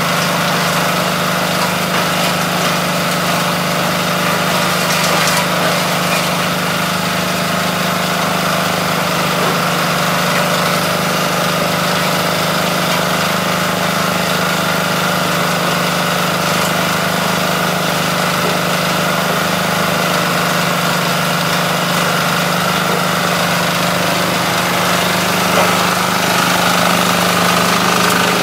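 Small engine driving a coconut-husk shredder, running steadily at a constant speed with a steady hum, while husk is fed into the hopper.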